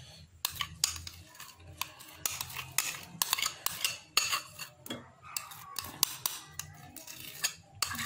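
A metal spoon repeatedly scraping and clinking against a small ceramic bowl as thick mayonnaise is scraped out of it. The sound is a string of sharp clicks and short scrapes.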